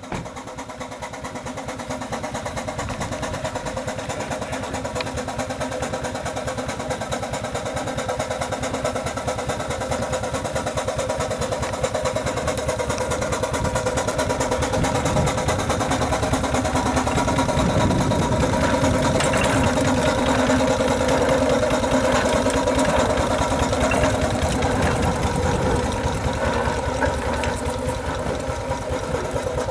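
5/8-scale Wood Brothers steam traction engine running as it drives, its engine beating in quick, even strokes, growing louder as it comes closer and easing a little near the end.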